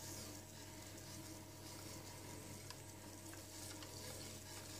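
Faint stirring of a thick, warm chocolate mixture with a spatula in a stainless steel pot, with a few light ticks of the spatula against the pot.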